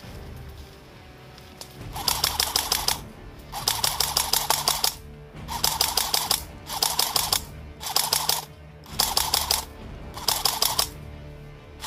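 Airsoft rifle firing about seven short full-auto bursts, each a rapid string of clicks lasting under a second, with brief pauses between them.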